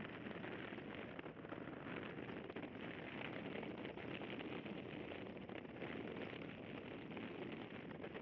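Steady wind and road noise on the microphone of an action camera mounted outside the rear of a Toyota GT86 driving along a road, with no distinct engine note standing out.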